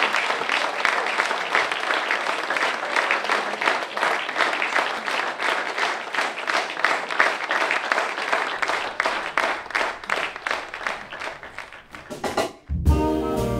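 Audience applauding with dense, steady clapping that thins out after about ten seconds. Near the end a small jazz band starts up abruptly, with clarinet and saxophone over vibraphone, upright bass and drums.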